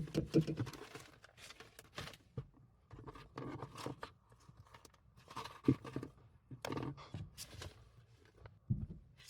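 Rummaging through tools and gear: a scatter of small clicks, knocks and clatters with bits of rustling.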